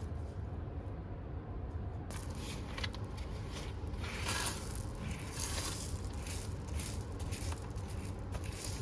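Crunching, crackling and rustling of something being handled close to the microphone, starting about two seconds in, over a steady low hum.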